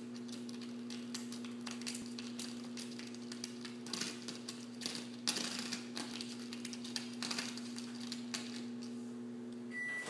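Scattered taps and rattly clicks as a small dog paws and noses at a door stopper on the baseboard, with claws clicking on the hardwood floor. A steady low hum runs underneath and cuts off at the very end, just after a short high beep.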